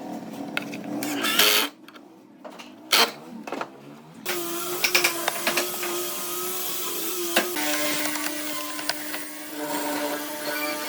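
A few short bursts of a power tool in a workshop, then background music with long held tones comes in about four seconds in and changes pitch about halfway through.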